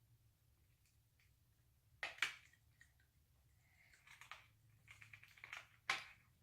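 Near-quiet room with a few sharp clicks and taps: a pair about two seconds in and one more near the end, with faint handling sounds between them.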